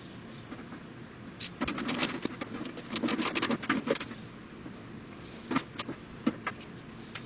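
Light metallic clinking and rattling of hand tools and bolts being handled, in two irregular bursts: one about a second and a half in, lasting a few seconds, and a shorter one near six seconds.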